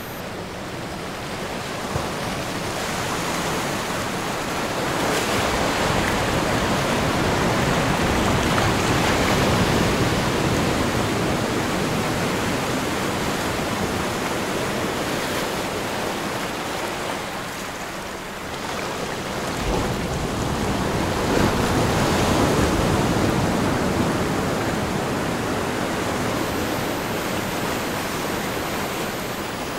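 Recorded ocean waves: a steady rush of surf that slowly swells and falls back, building to a peak about ten seconds in, easing off, then swelling again a little after twenty seconds.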